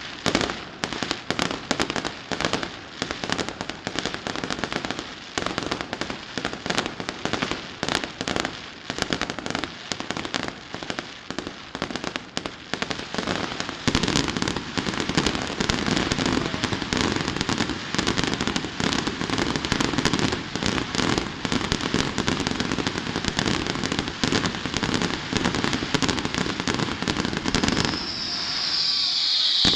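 Fireworks display: a rapid crackle of many small reports. About halfway through it grows into a louder, nearly continuous barrage, typical of a show's finale.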